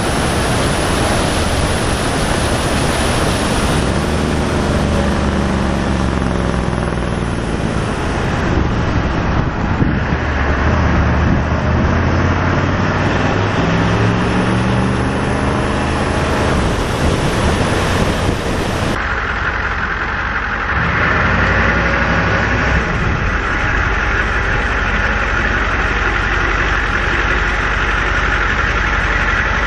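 Straight-piped, turbocharged Ford 7.3 IDI diesel V8 in an F350 pulling away and accelerating, its note rising and falling with the revs. After an abrupt change about two-thirds through, it runs steady and even, like an idle.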